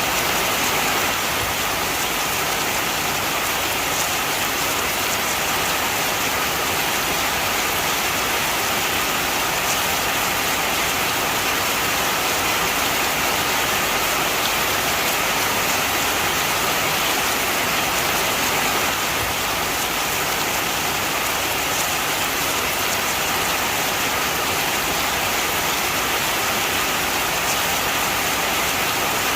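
Heavy rain falling steadily, an even hiss with faint ticks of drops landing on a surface.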